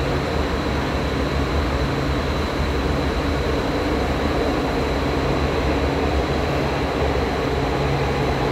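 Metro train running, heard from inside the carriage: a steady rumble and rush of wheels on the track, with a faint high steady whine over it.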